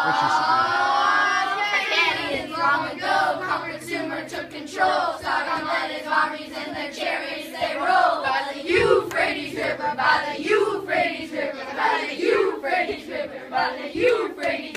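A class of children singing a song together in a loose group, opening with a rising group shout in the first two seconds before the words settle in.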